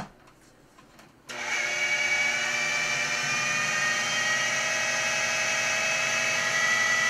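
Food processor motor running steadily under the load of a thick batter, starting about a second in and cutting off sharply at the end. A light click or two before it starts.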